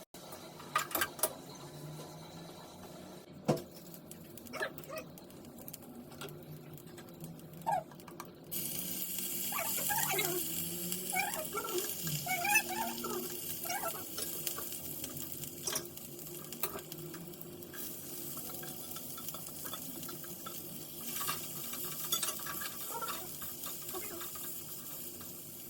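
Kitchen utensils clicking and knocking, then from about eight seconds in, the steady hiss of bread pakoras sizzling as they deep-fry in hot oil. A few short wavering squeaky sounds come through a couple of seconds after the sizzling starts.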